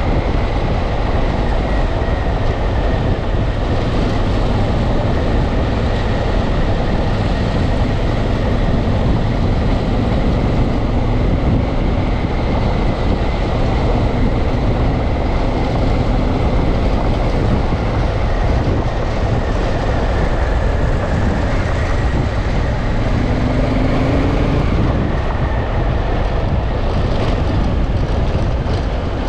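Honda Africa Twin parallel-twin engine running at a steady cruise on a dirt road, mixed with steady wind rush on the microphone and tyre noise on the dirt surface.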